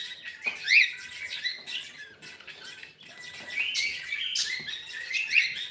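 Cockatiel chirping in a busy run of short rising and falling calls, loudest about a second in.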